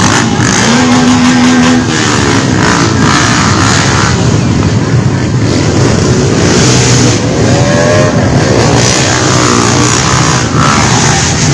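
Loud, continuous noise of small motorcycle engines running and revving: a held note about a second in, and revs that rise and fall later.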